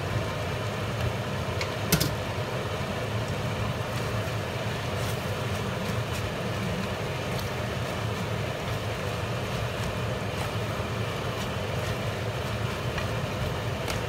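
Seafood stir-fry sizzling in a nonstick pan as it is stirred and tossed with spatulas, over a steady low hum. A spatula knocks sharply on the pan about two seconds in.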